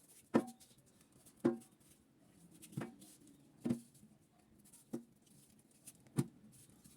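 Knife knocking against a cutting board while cutting and peeling an aloe vera leaf: six sharp, short knocks spaced about a second apart.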